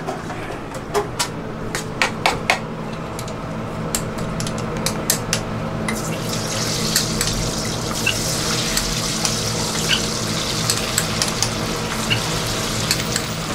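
Falafel being fried in a deep fryer: metal scoop and utensil clicks and knocks, then from about six seconds in, hot oil sizzling steadily with more clicks over it.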